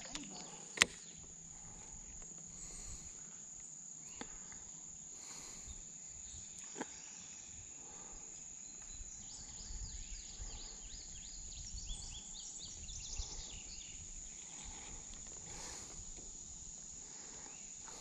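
Steady high-pitched chorus of insects, joined by a faster pulsing chirp from about nine to fourteen seconds in. A few sharp clicks stand out, the loudest about a second in.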